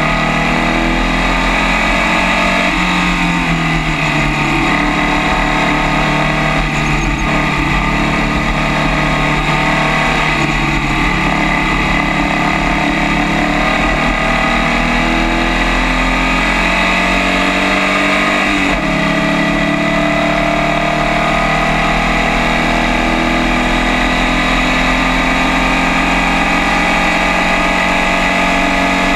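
Formula First race car's engine running hard on track, picked up by the onboard camera. Its pitch rises and falls slowly with the car's speed, with a short break and a sharp pitch change about two-thirds of the way in.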